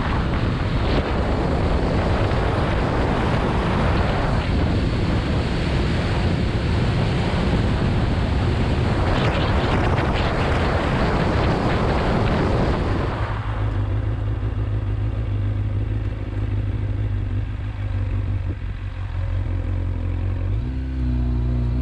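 Motorcycle ridden at speed, its engine under a loud rush of wind noise. About 13 seconds in the wind rush stops abruptly, leaving the engine's steady low hum at a slower pace, and the engine pitch briefly rises near the end as it accelerates.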